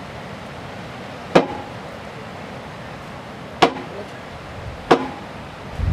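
Three sharp knocks, each with a brief ring, spaced about one to two seconds apart, over a steady background hiss.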